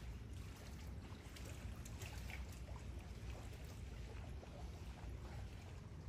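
Harbour water gently lapping and trickling over a steady low rumble.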